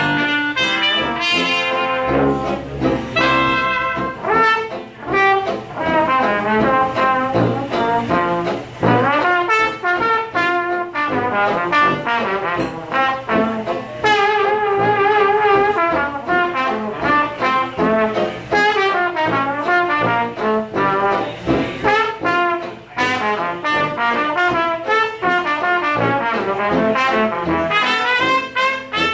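Traditional jazz band playing a full ensemble passage, with trumpet, trombone and clarinet lines over banjo and tuba.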